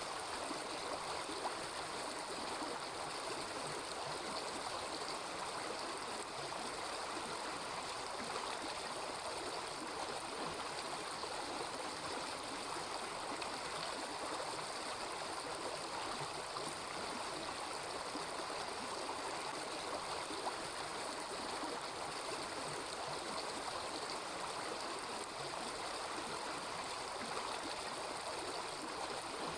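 A small river babbling steadily, an even running-water hiss with no pauses.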